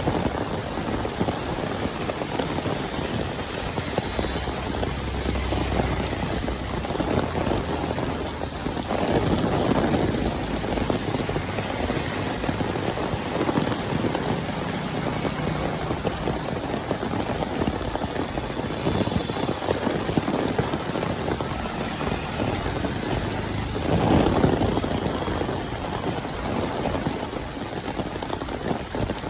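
Heavy monsoon rain pouring steadily, a dense hiss of water that swells louder twice, about a third of the way in and again later on.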